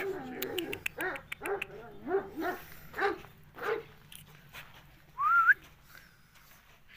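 Large Anatolian shepherd dog barking repeatedly, about two barks a second, for the first few seconds. A short rising whistle comes about five seconds in.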